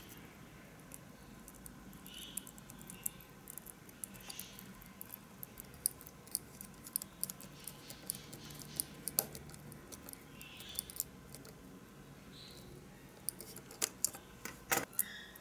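Light clicks, taps and scrapes of a small screwdriver working wire ends into the screw terminals of a digital thermostat board, tightening the connections. A denser run of sharper clicks comes near the end.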